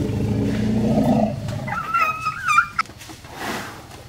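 Asian elephant calf vocalizing: a loud, low, rough roar in the first second or so, then a higher, wavering squeal about two seconds in.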